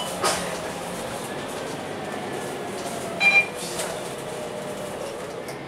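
Steady engine and road noise inside the cabin of a MAN NL323F A22 city bus under way, with a short electronic beep at the start and a louder quick double beep about three seconds in.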